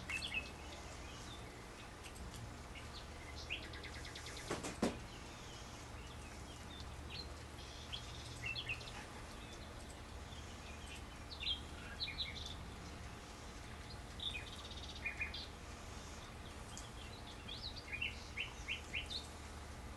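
Small birds chirping on and off in the background over a steady low hum, with one sharp knock about five seconds in.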